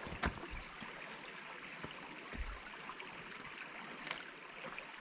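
Small spring-fed creek flowing steadily, with a few faint knocks.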